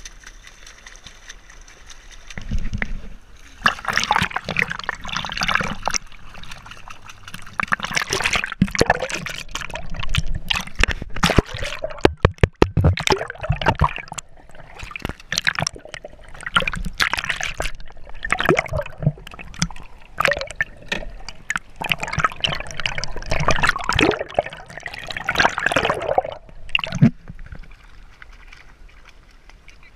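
Sea water sloshing and gurgling around an action camera bobbing at the surface and dipping under it, in irregular splashy bursts, with a quick run of sharp clicks about twelve seconds in.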